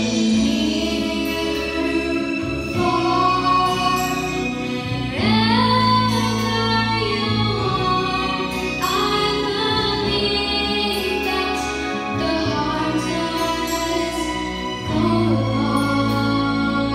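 Young girl singing into a microphone over a recorded instrumental backing track, holding long notes with rising slides into new ones.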